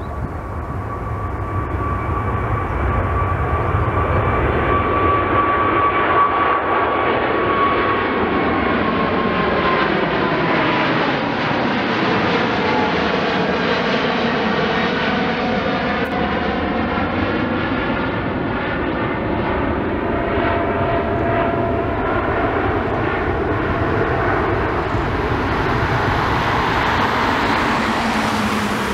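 Twin GE90 turbofans of a Boeing 777 freighter at take-off thrust as it lifts off, climbs past and away: loud, steady jet engine noise with a high whine that slides down in pitch as the aircraft goes by. The noise builds over the first few seconds and then holds.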